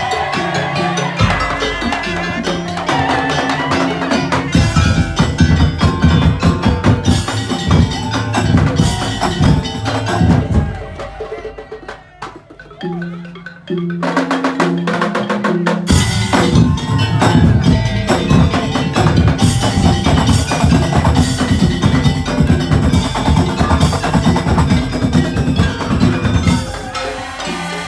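Madurese tongtong ensemble music: wooden slit drums, drums and tuned mallet percussion playing a fast, dense rhythm. About eleven seconds in it thins out into a short, quieter break, then the full ensemble comes back in.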